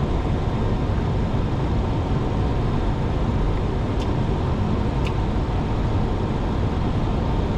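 Steady rush of airflow and engine noise on a Boeing 737-800 flight deck on short final approach, with two faint clicks about four and five seconds in.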